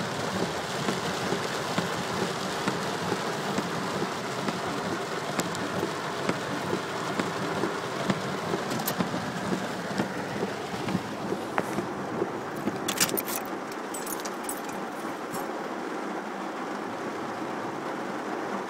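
Heavy rain beating on a car's roof and windshield, heard from inside the car, as a steady hiss with scattered small clicks and knocks. About 13 seconds in there is a short cluster of sharp clicks, and after it the low rumble under the rain drops away.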